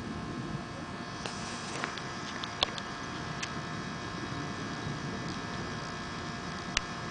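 Thunder rolling on continuously as a low, steady roar, with a faint steady hum underneath. A few sharp clicks come through, the loudest about two and a half seconds in and near the end.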